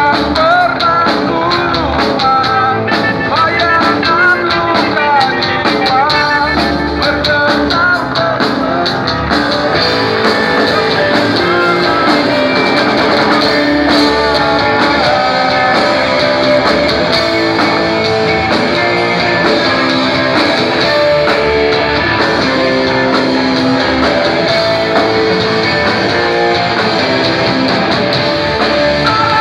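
A grunge rock band playing live: guitar and drum kit with a singer's voice, the singing clearest in the first several seconds.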